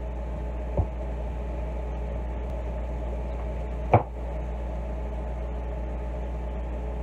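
A kitchen knife cutting a pumpkin knocks against a wooden cutting board: a faint knock about a second in, then a louder one about four seconds in. A steady low hum runs underneath.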